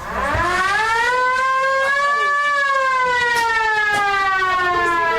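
A siren winding up, rising in pitch over about two seconds, then slowly sliding back down.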